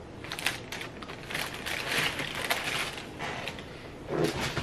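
Tissue paper rustling and crinkling in uneven bursts as it is handled and pulled out of a sneaker box.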